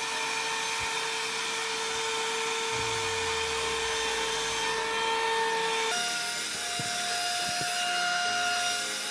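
One-step hot air brush hair dryer running, its motor giving a steady whine over the rush of blown air as it is worked under the hair for volume. About six seconds in, the whine steps up in pitch.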